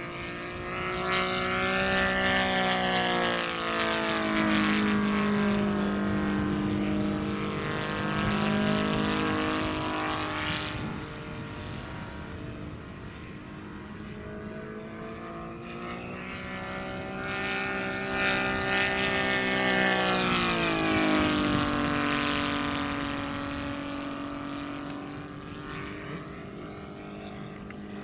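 Saito 60cc three-cylinder radial petrol engine of a large-scale RC P-47 Thunderbolt model running in flight. Its note grows loud and then fades twice as the model makes two passes, and the pitch drops as it goes by.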